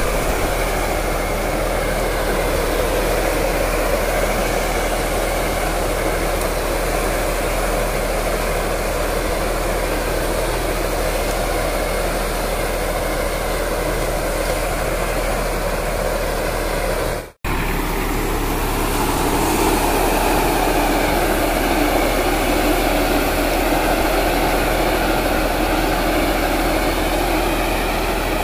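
A crop sprayer's engine running steadily with a broad hiss over it. The sound cuts out for an instant about seventeen seconds in, then carries on unchanged.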